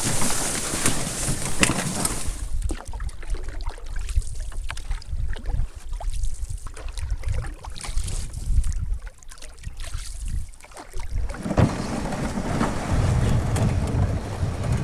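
Leaves and branches brushing and scraping past an overturned canoe carried overhead for about two seconds, then a canoe paddled across a lake, with wind buffeting the microphone.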